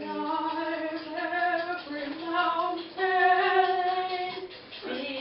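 Four-week-old Border terrier puppies singing, which is to say howling together in long high notes held a second or so each, several voices overlapping. They are loudest about three seconds in and dip just before the end.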